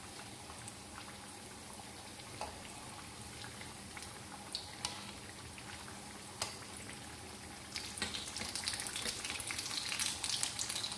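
Potato patties shallow-frying in hot oil: a low, steady sizzle with a few sharp clicks. From about eight seconds in, the sizzle turns louder and crackly as the patties are turned over in the oil.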